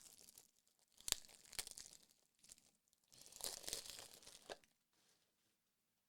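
Faint crinkling and rustling of plastic card holders and packaging being handled, with a sharp click about a second in and a second stretch of rustling a little past the middle.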